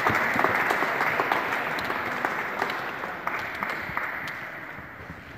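Audience applauding, gradually dying away.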